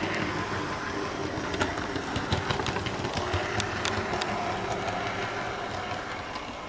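Hornby Class 153 OO gauge model railcar running along the track: a steady motor hum with scattered clicks from the wheels on the rails, fading a little near the end. It runs smoothly with no grinding, as a new model that still needs running in.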